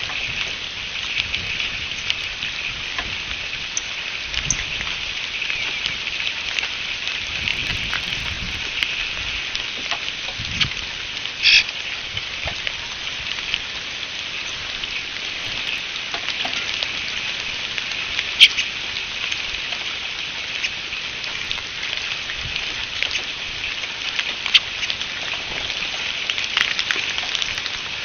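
Steady rain pattering, with a few sharp, louder drop hits close by.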